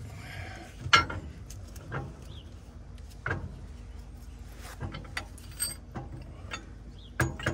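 Steel drawbar parts and a hanging chain clinking and clanking as they are handled and fitted: irregular single knocks a second or so apart, the loudest about a second in, with a quick cluster of lighter clinks in the second half.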